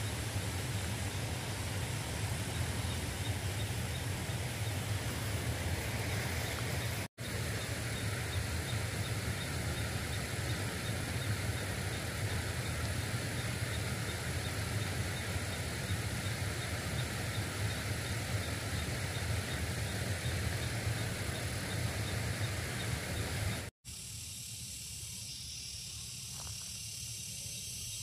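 Steady outdoor background noise with a strong low rumble, broken twice by sudden brief cuts. After the second cut near the end it turns to a quieter hiss with steady high-pitched bands.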